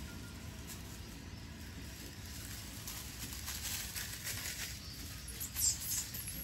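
Outdoor ambience under a tree: a steady low rumble with faint scattered rustling and clicks, and one brief sharp high-pitched sound about five and a half seconds in.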